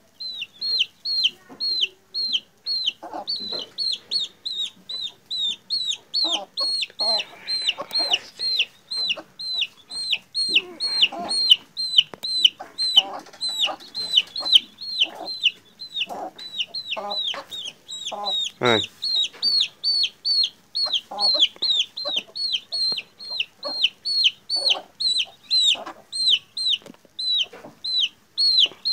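A young chick peeping loudly and steadily while being held and handled, about two to three high calls a second, each dropping in pitch: distress peeps. Lower, shorter calls sound now and then underneath.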